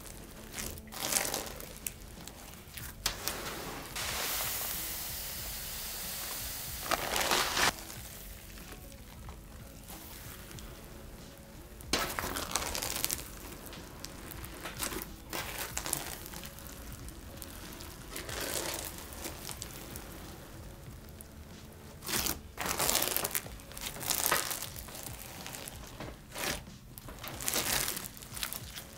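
Clear slime packed with bingsu beads being pressed, squished and stretched by hand, giving irregular bursts of crunchy crackling, with a longer stretch of crackle about four seconds in.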